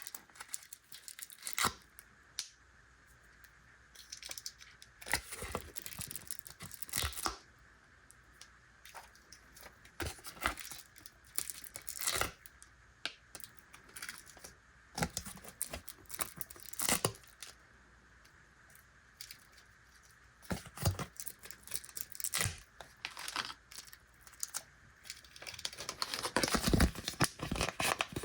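Plastic sweet wrappers being torn open and crinkled by hand: separate rustles and small taps every second or so, then a busier spell of crinkling in the last few seconds.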